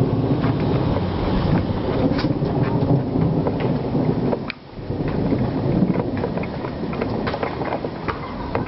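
Rain during a thunderstorm, with wind buffeting the microphone and many small sharp ticks of raindrops; the sound drops away briefly about four and a half seconds in.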